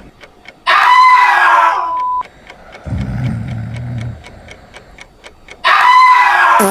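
A person snoring once, with a very loud, harsh blast about half a second in and another near the end, over a steady ticking of about four ticks a second.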